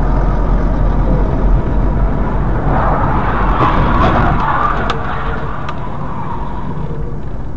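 Steady low rumble of a car's engine and tyres heard from inside the cabin on a dashcam, with a brighter, louder swell about three to five seconds in and a few sharp clicks.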